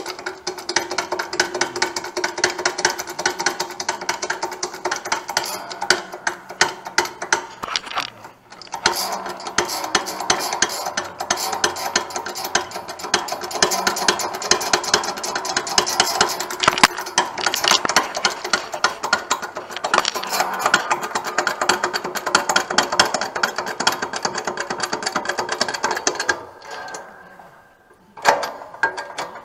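Hydraulic shop press driving a press-brake die down onto a flat steel bar: a continuous fast mechanical chatter with a short break about eight seconds in, dying away a few seconds before the end.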